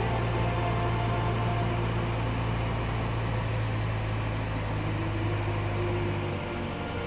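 Light single-engine aircraft's engine and propeller droning steadily, heard inside the cabin. The drone eases a little about six seconds in.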